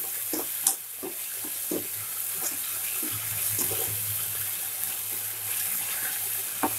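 Masala gravy with capsicum sizzling in a kadai, just thickened with cornflour slurry, while a spatula stirs and scrapes through it: a steady hiss with short scraping strokes, a louder scrape just under a second in and two more near the end.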